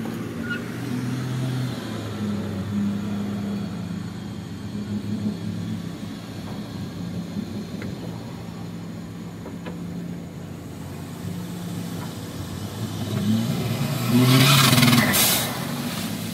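Engine running steadily close by. From about 13 s in, an engine revs up loudly for a couple of seconds as an off-road buggy is winched up out of a flooded mud pit.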